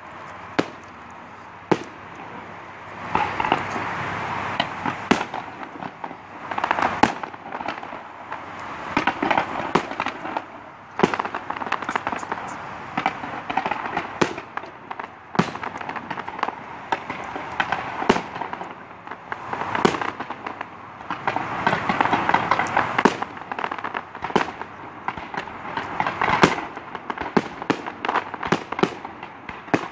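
Aerial fireworks bursting overhead: many sharp bangs, some in quick clusters, with several stretches of denser noise between the bangs as shells go off in rapid succession.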